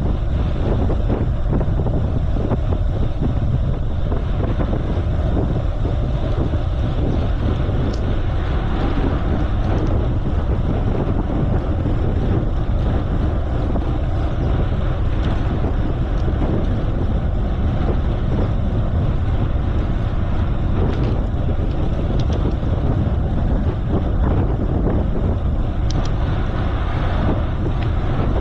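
Steady wind rushing over the microphone of a bicycle being ridden, with a few faint clicks.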